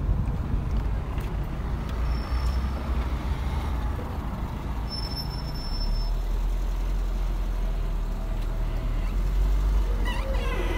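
A motor vehicle's engine running steadily with a low rumble, its low note shifting about six seconds in.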